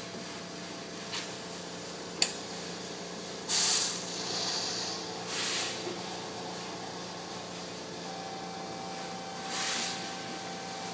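Automated microplate washer running, with a steady pump hum. There is a sharp click about two seconds in, then bursts of hiss as it sucks wash liquid out of the wells, the loudest near four seconds and another near ten. A steady whine starts about eight seconds in.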